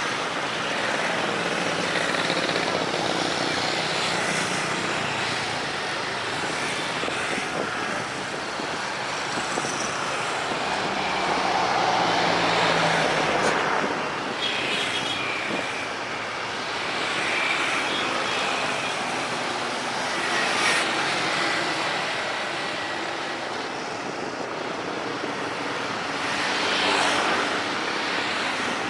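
Road traffic passing close by, swelling and easing every few seconds, mixed with the engine noise of a jet airliner near the runway.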